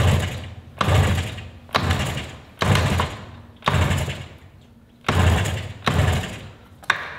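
1972 Yamaha DS7's 250 cc two-stroke twin being kick-started: eight kicks about one a second, each starting sharply and dying away as the engine turns over without firing. The bike is getting no fuel, which the owner puts down to a faulty petcock.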